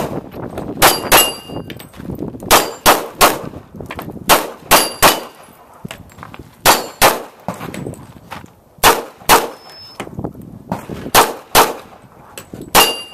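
Semi-automatic pistol fired in quick pairs and triples, about fifteen sharp shots with a group every second and a half or so. Some shots are followed by a short metallic ring, typical of bullets striking steel targets.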